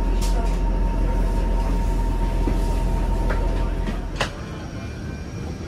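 Steady low rumble of a vehicle in motion, heard from on board, with a faint steady whine. Both ease off about four seconds in, marked by a sharp click.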